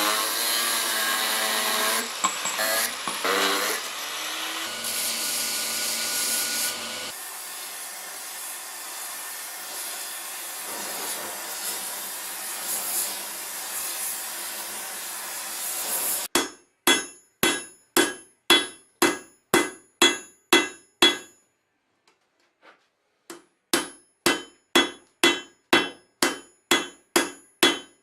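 Hand hammer striking steel on an anvil while forging a hammerhead: steady blows about two a second, each with a metallic ring, in two runs with a short pause between them. For the first half, before the blows, there is a steady rushing noise that cuts off suddenly.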